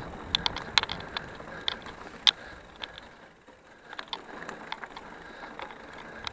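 Mountain bike rolling over a rough dirt trail: irregular sharp clicks and rattles over a steady rolling noise.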